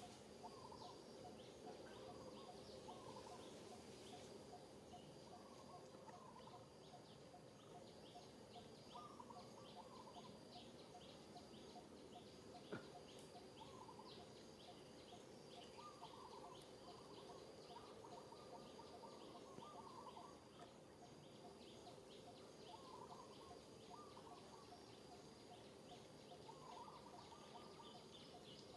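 Near silence: faint outdoor ambience with birds chirping in short repeated phrases over a steady high trill, and one sharp click about halfway through.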